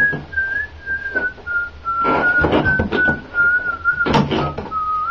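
A person whistling one long, slowly wavering note that drifts gradually lower in pitch, with a few short knocks or shuffles under it.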